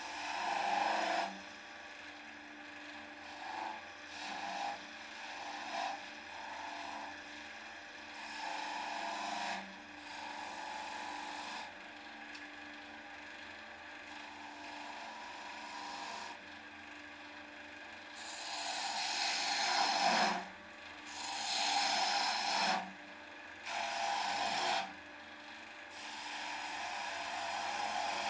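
Wood lathe running with a faint steady hum while a hand-held turning tool cuts into the end of the spinning wooden box blank, hollowing it. The tool makes a string of scraping, hissing cuts of one to three seconds each, with the loudest and longest cuts in the last third.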